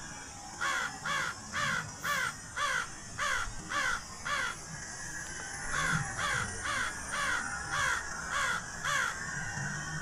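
A crow cawing in two evenly paced runs of about eight caws each, roughly two caws a second, with a short pause between the runs around the middle.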